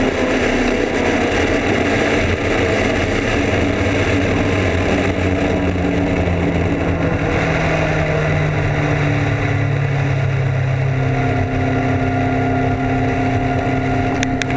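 Suzuki Hayabusa's inline-four engine running at speed under heavy wind rush on the microphone. The engine note falls steadily in pitch from about five seconds in, then settles to a steadier note near the end.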